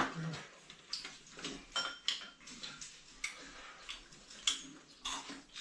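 Tableware clinking during a meal: a string of light, irregular clicks and clinks of utensils against bowls and plates, a few of them ringing briefly.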